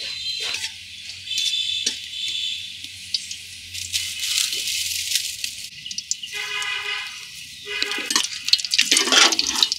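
Whole spices sizzling in hot oil in an aluminium karahi, with a metal spatula clinking and scraping against the pan. A pitched call sounds twice in the background. Near the end a dense crackling rises as dry straw burns in the clay stove.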